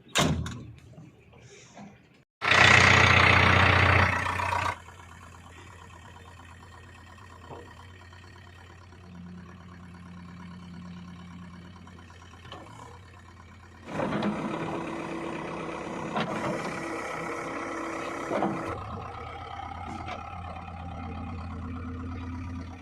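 Heavy diesel engines of a backhoe loader and tractors running steadily, with a very loud burst of noise a few seconds in and a louder stretch of engine noise past the middle.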